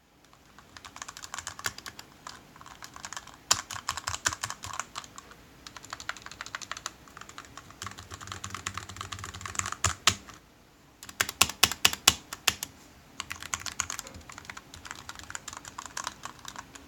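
GMMK TKL mechanical keyboard with Corsair keycaps being typed on: fast, continuous key clacking. About ten seconds in the typing breaks off briefly, then resumes with a run of louder, separate key strikes.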